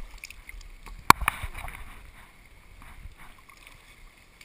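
A volleyball smacked by hands once, sharply, about a second in, followed by a couple of lighter slaps and splashes, over the steady lapping and sloshing of pool water.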